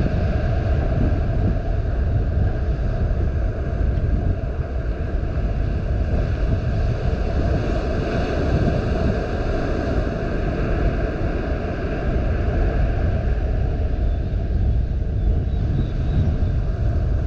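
Wind blowing across the microphone, a steady low rumble that rises and falls.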